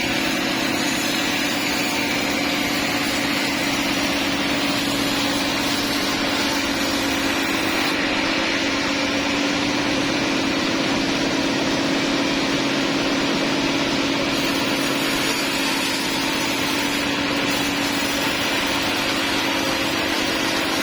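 Sawmill engine running steadily at a constant speed, a continuous drone with no change in pitch or level.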